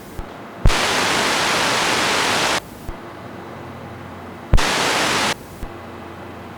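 Two bursts of radio static on an air traffic control frequency: a transmitter keyed with no voice. Each burst opens with a click and cuts off sharply. The first lasts about two seconds and the second under a second.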